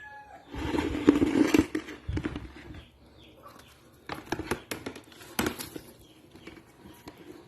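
Freshly caught fish flapping and thrashing, with irregular wet slaps and knocks in two bouts, one starting about half a second in and one about four seconds in.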